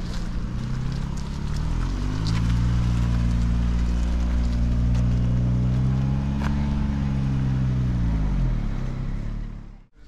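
Harley-Davidson V-twin motorcycle engine running, its pitch climbing about two seconds in, holding steady, then dropping back before the sound cuts off abruptly near the end.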